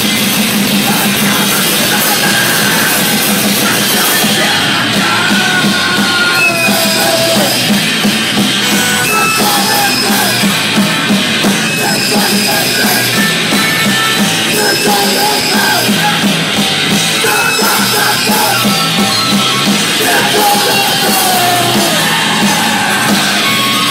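A band playing grind'n'roll, loud and dense, with drums and gliding, squealing tones over the top.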